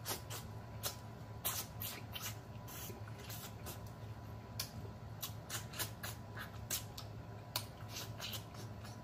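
Close-up wet mouth sounds of a man sucking and licking food off his fingers while eating: an irregular run of sharp smacking clicks, about three a second.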